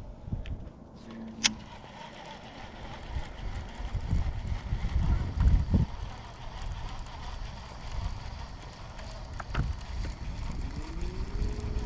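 A low, uneven rumble throughout, with a sharp click about one and a half seconds in. Near the end an electric trolling motor starts up: its whine rises in pitch and then holds steady.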